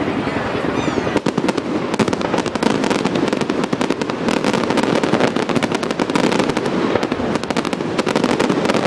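Fireworks display: a dense, continuous barrage of bangs and crackles, many reports a second without a break.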